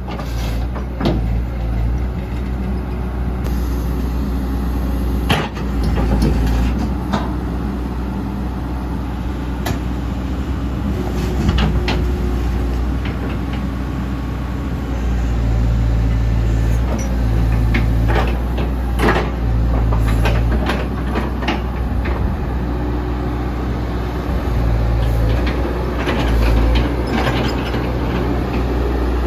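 CAT 312C excavator's diesel engine running, its note stepping up and down as the hydraulics take load. Sharp knocks and clunks come now and then throughout.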